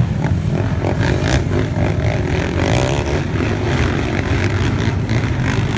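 Several racing quad ATV engines running together as the pack laps a dirt track, heard as a steady drone.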